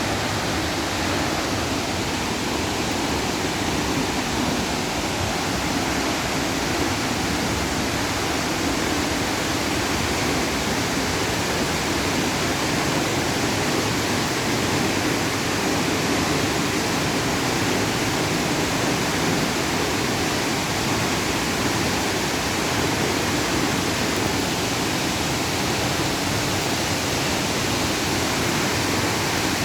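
Velikan waterfall: a steady, unbroken rush of falling water.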